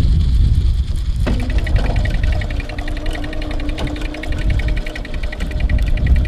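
Fishing reel being cranked to bring in a hooked fish, a fast even whirring click that starts about a second in, over a low rumble of wind and boat.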